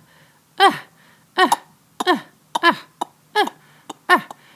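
A man's voice making a run of short grunts, each one dropping in pitch, one after another about every half second.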